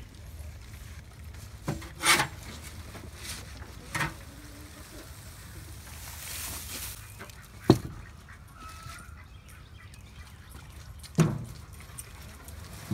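Goat manure with hay bedding being dumped and forked onto a compost pile: a handful of sharp knocks and thumps a second or more apart, with rustling between.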